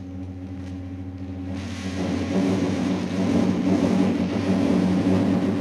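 Live electronics in a new-music performance for percussion and electronics: a steady low hum of several held tones, joined about two seconds in by a louder, dense rush of noise.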